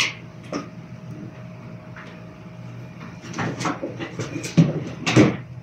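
Scattered clicks and knocks from a barber handling his tools during a haircut, sparse at first and bunching up toward the end, where they are loudest, over a steady hum.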